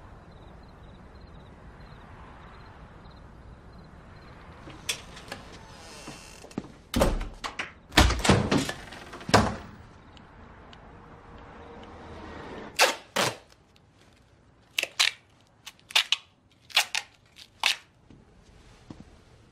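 A series of loud thuds, the heaviest clustered about seven to ten seconds in, followed by sharper knocks spaced irregularly a second or so apart. Faint rapid high beeping sounds in the first few seconds.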